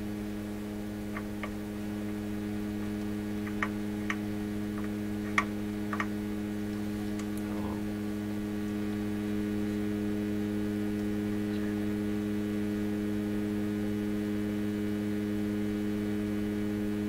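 Steady mains hum from a powered-up tube shortwave receiver and its bench test gear, several low pitches held together. A handful of faint light clicks fall in the first six seconds.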